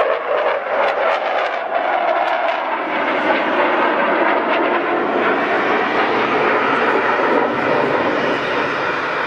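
Jet noise from a MiG-29's twin RD-33 turbofan engines as the fighter manoeuvres in a display flight: a loud, steady rush with a few sharp crackles over the first three seconds.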